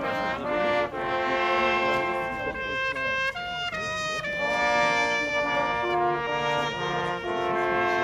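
Brass horns playing traditional Austrian hunting music: several held notes sounding together in harmony, changing every second or so.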